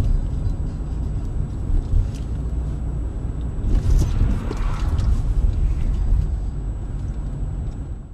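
Steady low rumble of a car's engine and tyres on a wintry road, heard from inside the cabin while driving, with a few short knocks about two and four seconds in.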